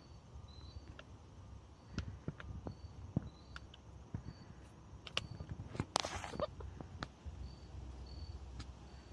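Silkie chickens and a chipmunk moving in the grass and straw of a pen: scattered light taps and rustles, with a louder scrabbling rustle about six seconds in. Faint short high chirps repeat in the background.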